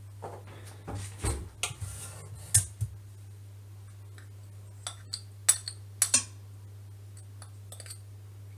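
A metal spoon clinking and scraping against a small ceramic dish and a stainless-steel mixing bowl as icing sugar is spooned in: scattered light clinks and taps in two clusters, over a steady low hum.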